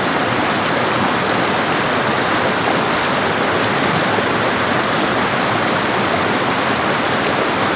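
Rain-swollen creek pouring over a stepped cascade of small rock ledges: a loud, steady rush of water.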